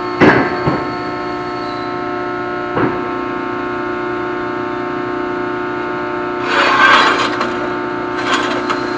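Press brake's motor running with a steady hum, with a short metal knock near the start and another about three seconds in as the dies are tightened. A longer scraping rasp comes about seven seconds in, with a shorter one just before the end.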